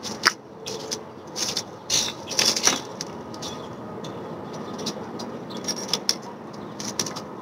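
Handling of gear on a small outdoor table: scattered short clicks, knocks and rustles over a steady background hiss.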